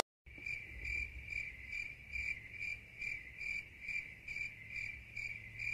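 Insect chirping: a steady high trill pulsing a little over twice a second, cutting in abruptly just after the start.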